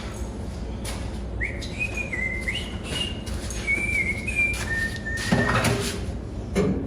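A person whistling a short tune in held, stepping notes, over scattered clicks and knocks from handling sheet metal, with a steady low hum underneath.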